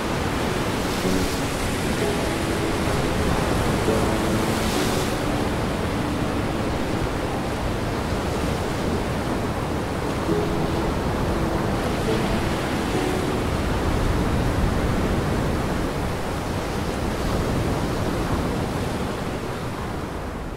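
Gale-driven storm-surge waves breaking on a rocky lakeshore with wind: a loud, steady rush of surf that swells a little now and then.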